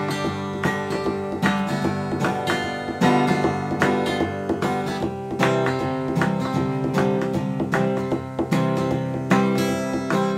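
Background music led by strummed and plucked acoustic guitar, with a steady rhythm.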